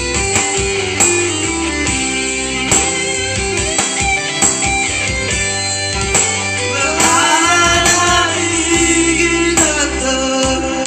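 A song with guitar and a singing voice over a steady beat, the melody bending and gliding through held notes in the second half.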